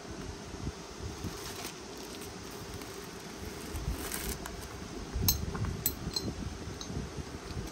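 Coach Track Pack bag being handled: soft rubbing and rustling of its coated canvas and leather flap, then a few sharp metallic clicks from the flap's buckle about five to six seconds in. A steady low hum runs underneath.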